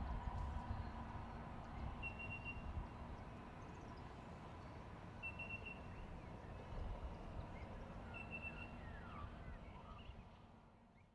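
Pacific National 81 and 82 class diesel-electric locomotives running as light engines, their engine rumble and steady hum dying away as they move off, then fading out near the end. A bird gives three short chirps over it.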